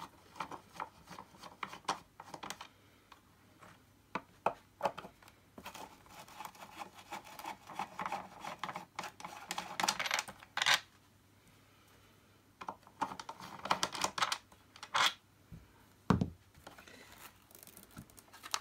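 Plastic parts of an Electrolux 502 vacuum cleaner being taken apart by hand and with a screwdriver: scattered clicks and taps, two longer spells of scraping and rattling, and a dull knock near the end.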